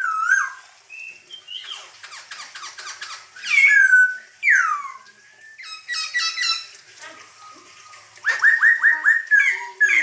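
Black-throated laughingthrush singing loudly: a varied run of whistled notes and falling glides mixed with fast rattling trills, and near the end a quick series of about five repeated notes.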